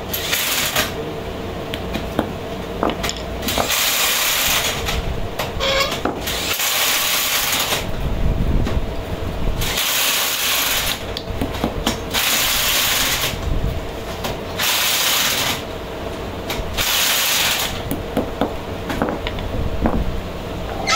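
Metal gear-pump housings being handled and set down on a concrete floor, with scattered clicks and knocks, over a steady machine hum. The loudest sound is a hiss that comes in bursts about a second long, roughly every two seconds.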